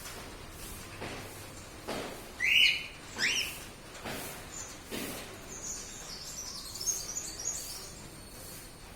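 Bird calling: two loud, short chirps about a second apart, followed by a run of thin, very high twittering chirps.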